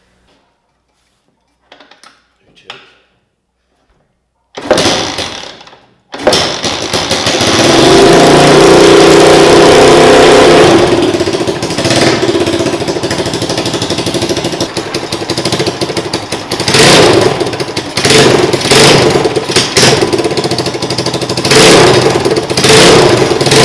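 A new single-cylinder kart engine clamped to a bench being started for the first time: a short burst of sound about five seconds in, then it fires and runs loudly a second later. It runs hardest for a few seconds, then settles with several sharp throttle blips, and cuts off suddenly at the very end.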